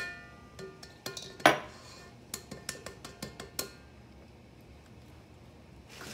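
An egg tapped against the rim of a stainless steel mixing bowl to crack it: a few sharp knocks, the loudest about a second and a half in, with the metal bowl ringing briefly after them, then a string of lighter ticks.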